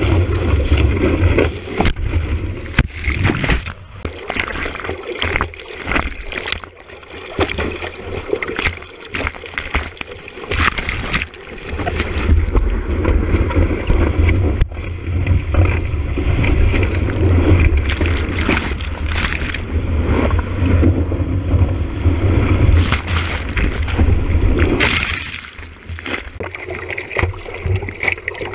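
Whitewater rushing and splashing over a surfboard-mounted camera as the board rides a breaking wave: a heavy low rumble of water buffeting the housing, with frequent sharp splashes on top.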